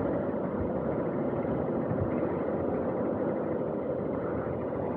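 Honda CBF190X single-cylinder motorcycle being ridden slowly in traffic: a steady running noise with no sudden changes.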